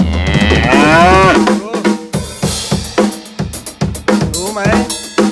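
Drum kit playing a beat, with snare and bass drum hits. Over it, in the first second and a half, a loud drawn-out wavering cry, rising and falling in pitch, and a shorter one about four seconds in.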